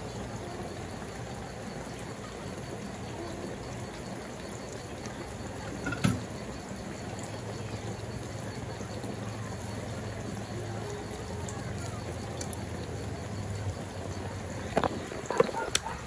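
Pork chops and onions simmering in sauce in a metal pan on the stove, a steady low bubbling. A sharp knock sounds once about six seconds in, and a few small clicks near the end.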